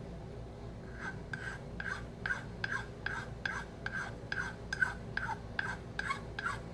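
Small flat steel file rasping across a briar pipe bowl in short, even strokes, about three a second, starting about a second in. The file is shaping the bowl to blend away a ridge.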